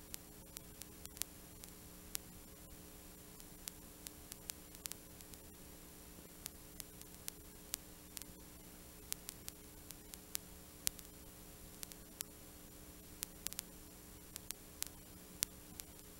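Steady low electrical hum of a few tones, with sharp static clicks scattered irregularly a few times a second: noise on a home camcorder's audio track.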